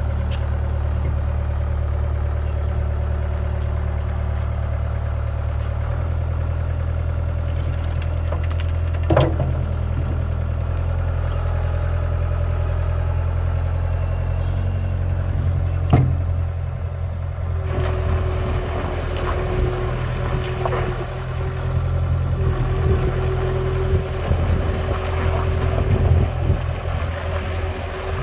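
CAT 262C2 skid steer's diesel engine running steadily, its note stepping up about six seconds in. Two sharp knocks come at around a third and a half of the way through. From about two-thirds of the way, a steady higher whine and some clatter join the engine.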